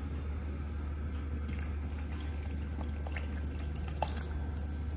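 Water being poured from a vessel into a pot of thin yogurt curry, splashing and trickling into the liquid from about a second and a half in, with a couple of small clinks near the end, over a steady low hum.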